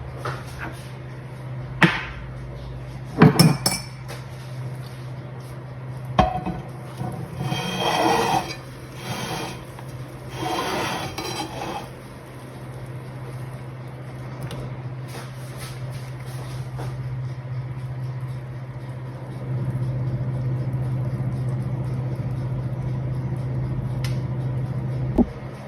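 Kitchen work: glass and dishes clinking, with several sharp knocks and two short ringing sounds near the middle, over a steady low hum that gets louder about two-thirds of the way through.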